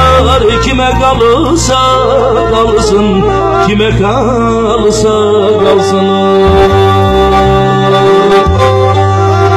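Live Black Sea folk music: a man singing into a microphone, accompanied by a Black Sea kemençe and a keyboard with a steady bass line. Long held notes fill the second half.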